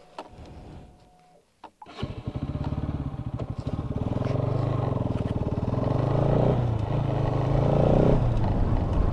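Motorcycle engine running as the bike is ridden. It starts abruptly about two seconds in, and its pitch shifts up and down a little with the throttle.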